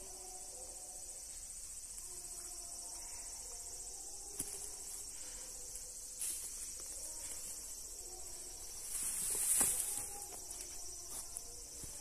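A steady, high-pitched chirring chorus of insects. About nine and a half seconds in there is a brief louder rush of noise and a knock.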